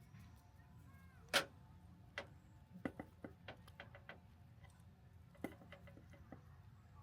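Scattered light clicks and knocks at uneven intervals, the loudest about a second and a half in, over a faint low rumble.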